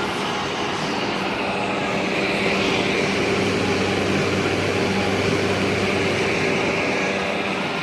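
1967 Carrier Weathermaker 8700 BTU window air conditioner running with its case off: steady compressor hum under a constant rush of fan air, a little louder through the middle.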